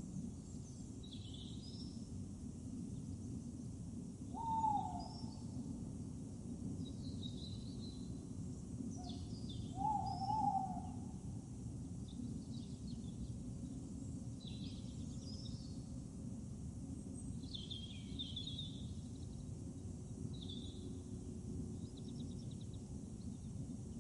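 Outdoor ambience of birds calling on and off, with two louder, lower falling calls about four and ten seconds in, over a steady low rumble.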